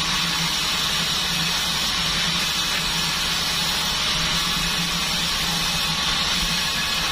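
Band sawmill running steadily, a constant low hum under a strong high hiss.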